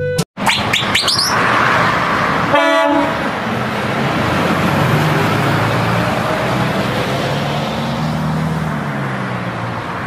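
Heavy box lorry driving past on a road, with steady engine and tyre noise, and one short horn toot about two and a half seconds in.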